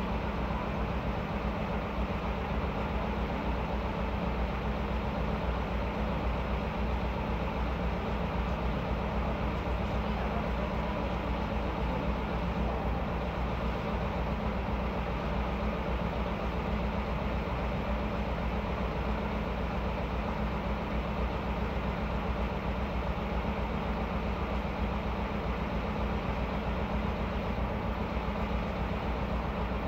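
Diesel engine of an orange KamAZ asphalt-patching truck idling steadily, a continuous low hum.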